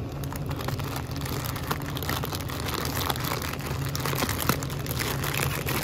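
Plastic instant-noodle packets crinkling and rustling as they are handled and pulled off a shelf, with a steady low hum underneath.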